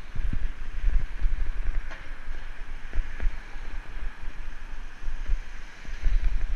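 Wind buffeting the microphone of a bicycle-mounted camera while riding, an uneven low rumble over a steady hiss of moving air and road noise.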